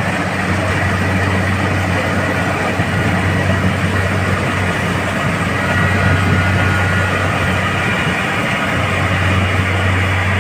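Rice combine harvester running steadily under load, its engine giving a constant low hum over the clatter and rush of the cutting and threshing works.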